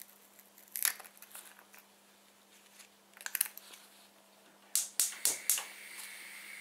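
Gas hob burner being lit: a quick run of about five sharp igniter clicks about five seconds in, then the steady hiss of the gas burning. Before that, a couple of light clicks and rattles.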